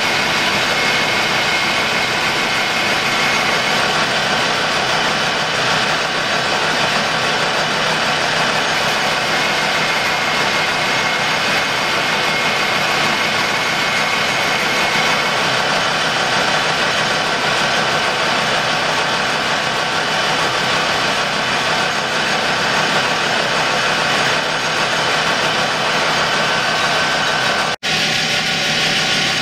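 Colchester Student metal lathe running steadily while its tool turns the edge of a spinning copper disc, rounding the sharp edge off, with a faint steady whine over the machine noise. A brief dropout near the end.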